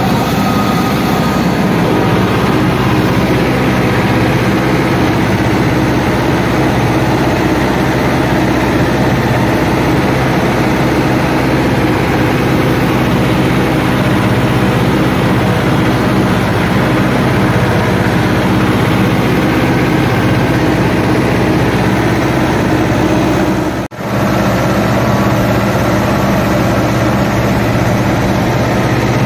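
Farm tractor engine running steadily, close up from the driver's seat. It cuts out for an instant about 24 seconds in, then runs on unchanged.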